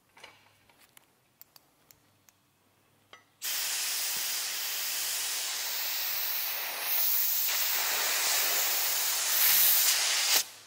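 Compressed air hissing through an air chuck into a dirt bike wheel's inner tube, inflating it so the tire seats on the rim. A few light clicks come first, then the hiss starts about three seconds in, gets louder about halfway through and cuts off suddenly near the end.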